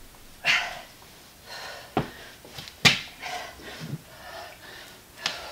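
A woman breathing hard through a dumbbell exercise set, with three sharp knocks about two, three and five seconds in.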